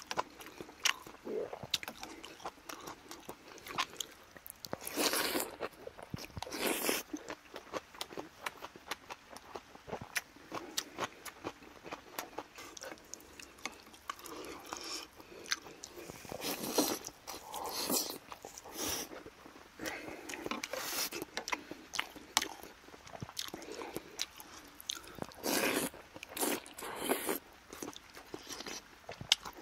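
Close-miked eating: chewing and biting of rice soup, kimchi and shrimp, with many small sharp clicks of chopsticks and a spoon against the bowls.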